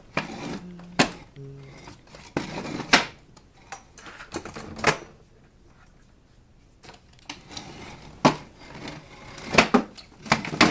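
Irregular knocks and clatter of objects being handled and moved, in a small room: about seven sharp knocks spread unevenly, with a quieter stretch in the middle.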